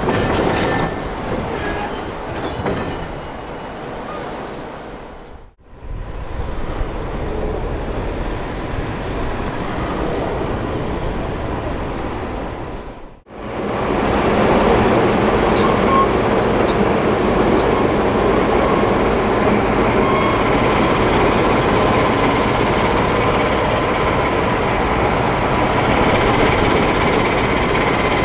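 Class 14 diesel-hydraulic locomotives running, heard in three stretches joined by two abrupt cuts. The last and loudest stretch has a steady whine over the engine noise.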